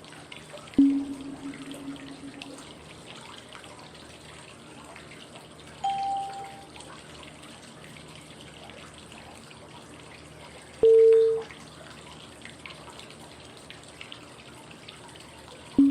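Steady flowing-water white noise with a short cue tone every five seconds: a low ringing tone, then a higher brief beep, then a louder mid-pitched beep, then the low tone again. The tones mark the five-second steps of a 5-5-5 breathing count.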